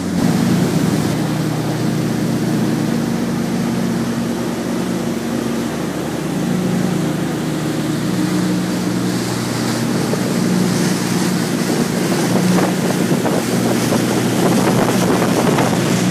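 Motorboat engines running steadily at speed, with water rushing past the hull and wind buffeting the microphone.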